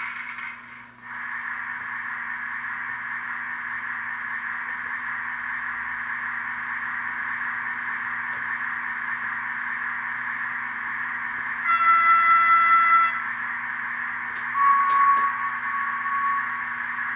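Sound from the ESU LokSound decoder in a Mehano H0 Thalys PBKA model train. A steady rushing noise switches on suddenly and runs on. About twelve seconds in comes a loud horn blast of about a second and a half, and a few seconds later a second, higher horn note, with a few sharp clicks between.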